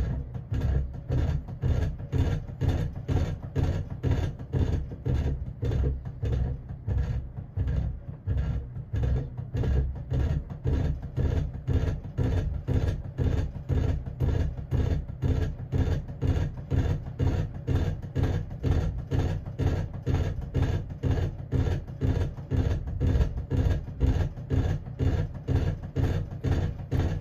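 Emerson friction-drive ceiling fan running with a loud, regular thumping beat, a few pulses a second. The owner puts the vibration down to the electrical tape he used to keep the rubber drive band on the wheels.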